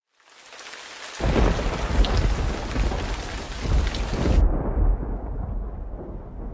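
Rain and rolling thunder. A rain hiss fades in, then a deep rumble of thunder starts about a second in and swells a couple of times. A little past four seconds the high hiss stops suddenly and the low rumble carries on.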